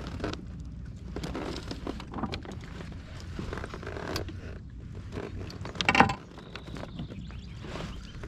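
Small knocks, clicks and creaks of gear being handled in a kayak, over a steady low rumble, with one sharp, much louder knock about six seconds in.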